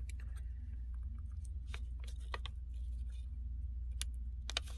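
A few small, sharp clicks and soft paper rustles as metal tweezers tuck a paper sticky note under a laptop's battery connector to keep the battery isolated, over a steady low hum.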